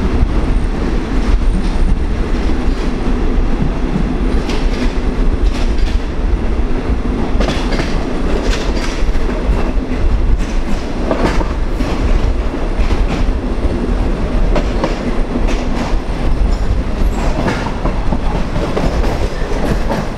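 Passenger train running through a station, heard from an open carriage window: a steady rumble with irregular clicks and clatter from the wheels over the track.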